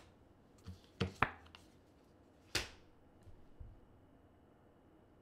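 Tarot cards being slapped down onto a spread by hand: a few short, sharp slaps, two close together about a second in and another a little later.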